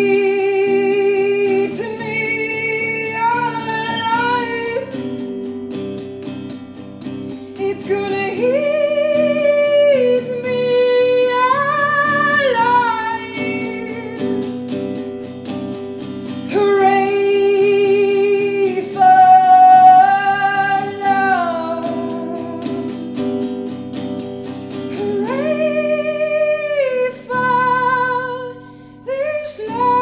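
A woman singing a slow song in long held notes with vibrato, accompanying herself on an electric guitar picked in steady chords.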